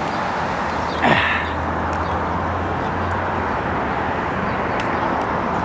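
Steady road traffic noise from cars passing below, with a constant low hum under it. About a second in, a short falling sound cuts across the traffic.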